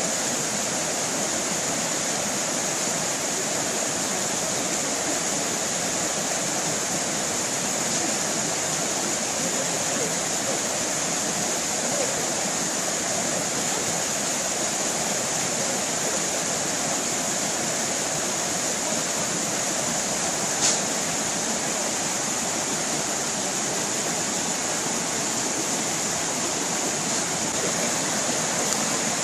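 Water of a small tropical stream rushing and splashing steadily over a cascade, a bright, hissy, even rush. One brief tick stands out about two-thirds of the way through.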